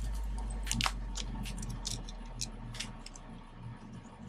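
Light crackling and clicking of thin clear plastic wrap being peeled off a first-generation Apple Pencil by hand. A low hum underneath fades away over the first three seconds.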